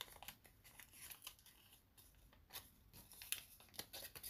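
Folded paper fortune teller being handled and flexed open: faint, scattered paper crackles, rustles and soft clicks.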